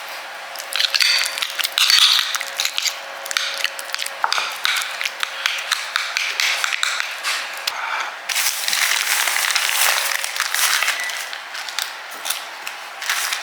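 A utensil stirring a thick cream cheese stuffing, with constant scraping and many small clicks and taps.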